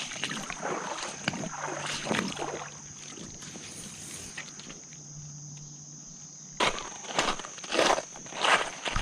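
Creek water splashing and sloshing in irregular strokes, quieter through the middle, then a few loud sudden splashes near the end.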